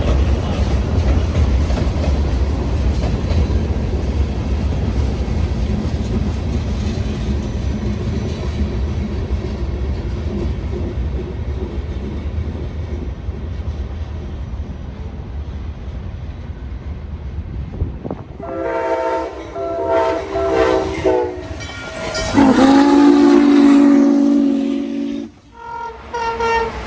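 Providence & Worcester freight train rolling with a steady low rumble and wheel clatter; about two-thirds of the way through, the locomotive's chime air horn sounds several blasts of a few tones at once, the longest one near the end bending up in pitch as it starts.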